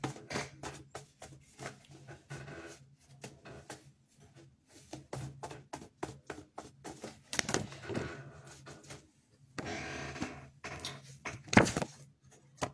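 Oracle or tarot cards being shuffled and handled: a long run of quick flicks and snaps, two short riffling passages, and a sharp tap near the end.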